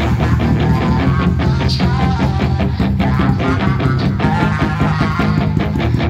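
Background pop song with a steady beat, in an instrumental stretch without singing.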